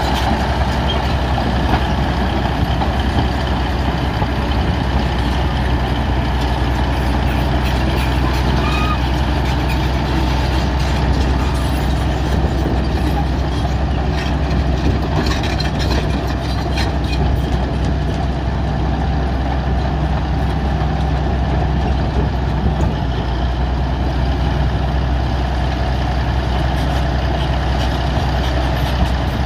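Bulldozer's diesel engine running steadily under load, a constant low drone.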